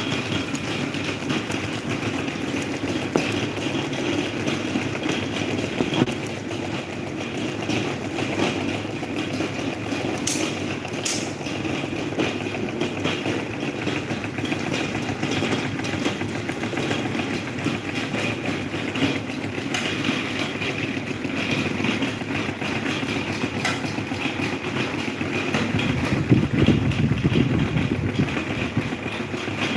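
Electric table fan running: a steady motor hum and blade whir, growing louder and lower for a couple of seconds near the end.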